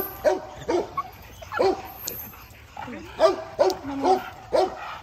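Pit bulls barking: about ten short barks in quick runs of two or three.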